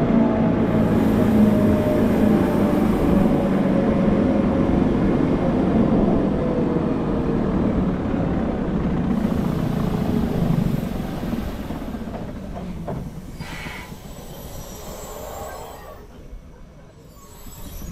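Electric cogwheel (rack) train running downhill, heard from the driver's cab: a steady low running rumble with a faint motor whine that slowly drops in pitch. A brief high squeal comes about two-thirds of the way through, and the sound then dies down toward the end.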